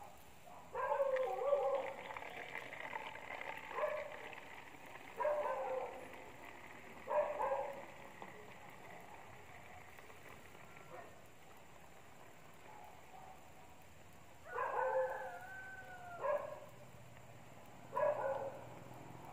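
A dog howling and whining in separate drawn-out calls with wavering pitch, about seven times, with the longest calls near the end.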